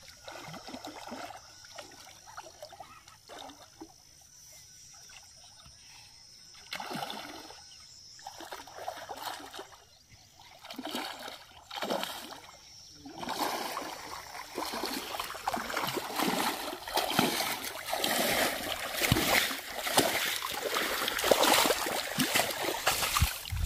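A big hooked rohu splashing and thrashing at the water's surface as it is played in on a rod. The splashes come in scattered short bursts at first, then turn continuous and louder from about halfway through as the fish is drawn into the shallows.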